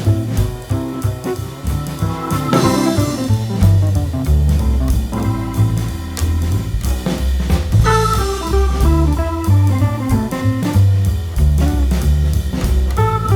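Background music: an instrumental band piece with guitar, bass and drum kit playing a steady beat, in a jazz or blues style.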